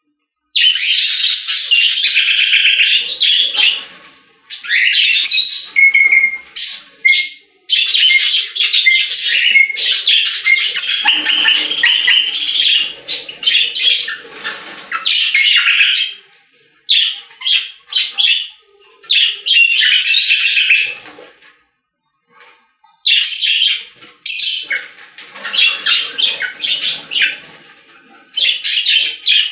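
Small birds chirping in dense, rapid, high-pitched bouts that stop and start several times.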